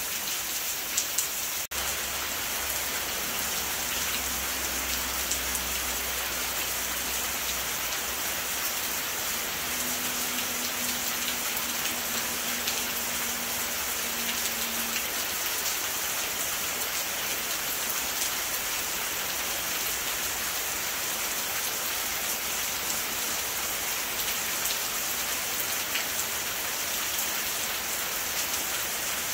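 Rain falling steadily, a dense, even hiss, with a momentary dropout in the sound about two seconds in.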